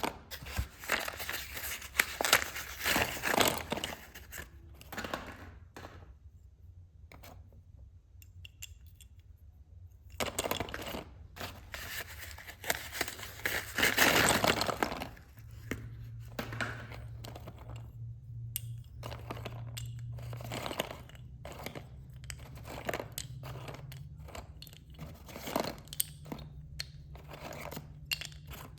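Box of slate pencils being unpacked: paper packaging torn and crinkled in two spells, followed by a long run of light clicks and taps as the contents are handled.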